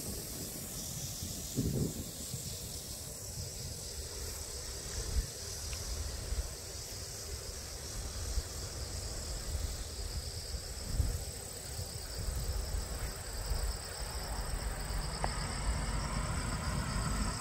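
Insects chirring steadily in a rice paddy, one high constant note and a pulsing trill just below it, over wind rumbling on the microphone. A mid-pitched hum joins near the end.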